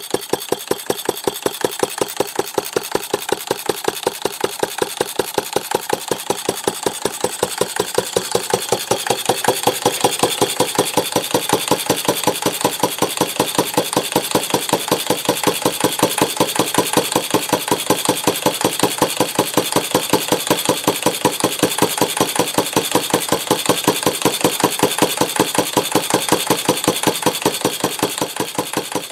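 Antique Stover/Duro AC 1/2 HP single-cylinder air-cooled engine running steadily, firing in an even, regular beat; it grows fainter near the end.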